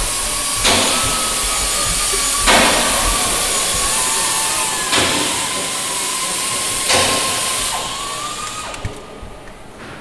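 Pneumatic air drill running with its air hiss and a thin whine, drilling through the aluminium skin of a Lancaster bomber's fuselage, with four brief louder bursts about two seconds apart; it stops about nine seconds in.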